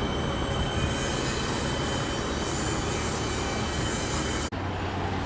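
Siemens Nexas electric multiple unit pulling into the platform and braking: a steady rumble of wheels on rail with a high-pitched whine over it. The sound breaks off for an instant near the end.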